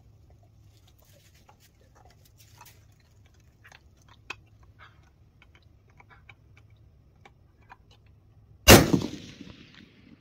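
A single 6.5-284 rifle shot, sudden and loud, near the end, its report echoing away over about a second. Before it, only faint small clicks.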